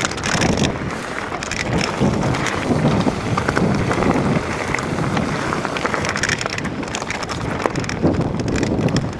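Mountain bike rolling fast downhill over a loose, stony track: steady wind noise on the microphone, with the tyres running over stones and frequent small rattles and knocks from the bike.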